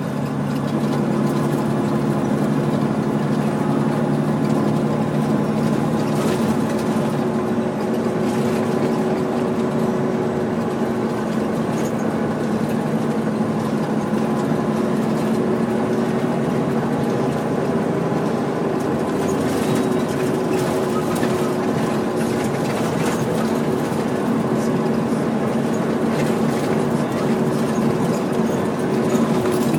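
Highway semi-truck's diesel engine running steadily while the rig travels a gravel haul road, with road noise and a few brief rattles.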